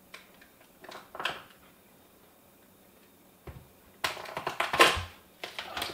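A raw lamb's skull being forced open by hand: a knock about three and a half seconds in, then about a second of cracking and crunching bone, with more short cracks near the end.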